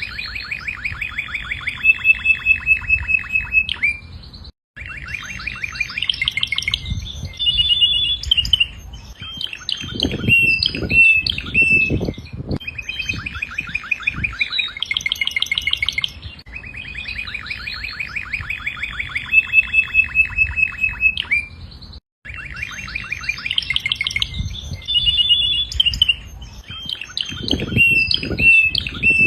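Canary singing a long continuous song of rapid trills and rolling phrases, with a few low thuds partway through and again near the end.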